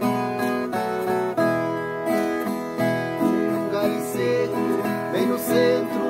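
Two violas caipiras, Brazilian ten-string guitars with doubled steel-string courses, playing a plucked duet. A man's voice begins singing near the end.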